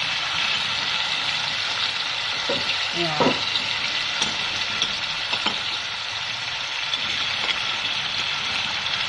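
Pieces of scad sizzling in hot caramel sauce in a pot on a gas burner, a steady frying hiss.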